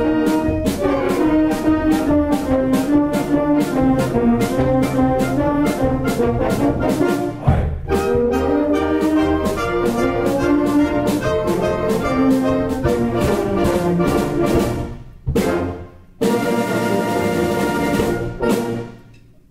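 Amateur orchestra with brass playing at a steady beat. Near the end the music drops away, a short hit follows, and after a brief gap the piece closes on a held final chord that dies away.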